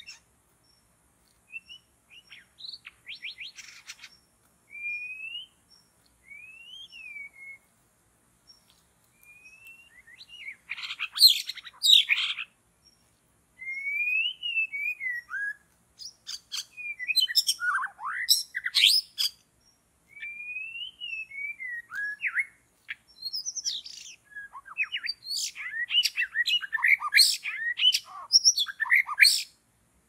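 White-rumped shama (murai batu) singing a long, varied song: clear whistled phrases that rise and fall, set apart by short pauses and by louder runs of rapid notes, the busiest near the end.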